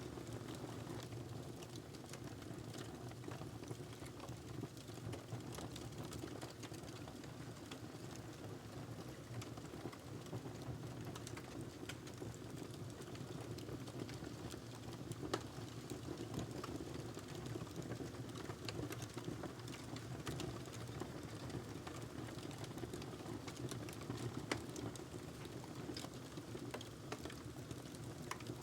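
Wood fire in a fireplace burning with a steady low rumble of flames and frequent small crackles and pops, two of them louder, near the middle and later on.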